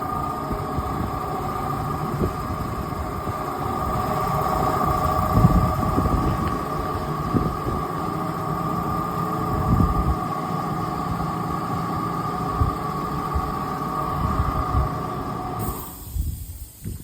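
A machine running with a steady high whine over a gusty low rumble. The whine cuts off abruptly near the end.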